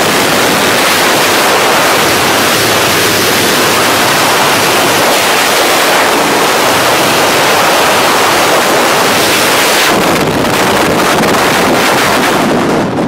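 Freefall wind buffeting the camera microphone during a tandem skydive: a loud, steady rush. It thins out near the end as the parachute opens and the fall slows.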